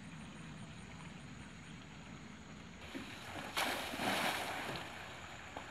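A person shooting out of a tube water slide into a swimming pool with one loud splash about three and a half seconds in, over a steady low hiss.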